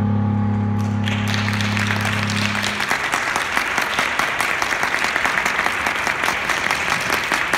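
A song ends on a long-held keyboard chord whose low notes die away about three seconds in, while audience applause starts about a second in and carries on.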